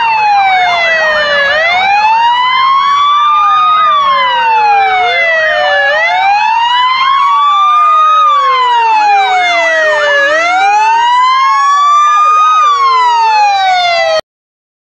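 Fire engine electronic sirens wailing, the pitch sliding slowly down and back up every few seconds, with a second siren wailing out of step with the first. The wail takes over from a fast yelp at the very start, and the sound cuts off suddenly near the end.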